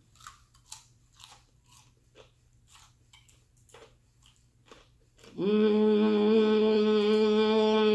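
Mouth-closed chewing of a bite of crunchy fried chicken, with faint, irregular crunches. About five seconds in, a long, steady, loud hummed "mmm" of enjoyment takes over and is held to the end.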